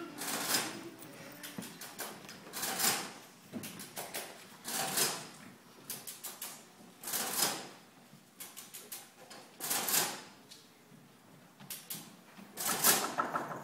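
Mechanical adding machine being worked: quick runs of key clicks, each followed by a loud clunk of the handle pull, about six times at intervals of two to three seconds.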